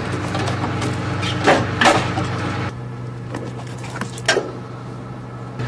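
A vehicle engine idling steadily, with a few sharp knocks over it; the hum drops and changes about two and a half seconds in, and the loudest knock comes near the end.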